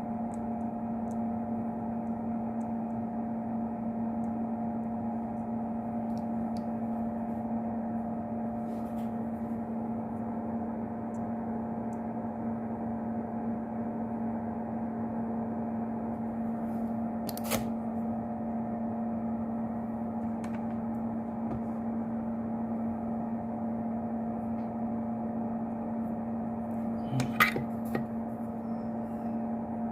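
A steady electrical hum with a fan-like hiss, broken by two short clicks, one past the middle and one near the end.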